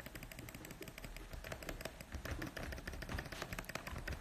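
Computer keyboard keys clicking in quick, irregular taps, as someone types.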